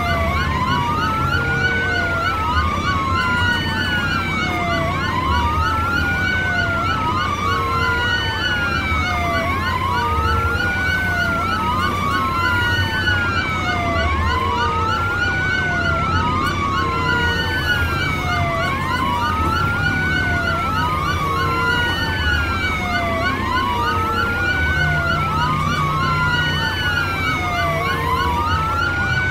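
Electronic siren sound, a wail that rises and falls over and over, about once every second and a half to two seconds, over a steady low hum and short regular low notes.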